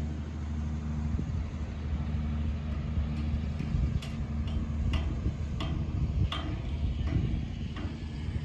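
A crane's engine running steadily with a low hum. Over it come sharp clicks or taps, one every half second to a second, mostly in the second half.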